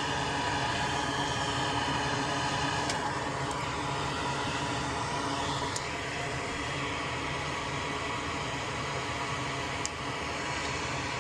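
A small fan runs with a steady hum, with a few light clicks over it.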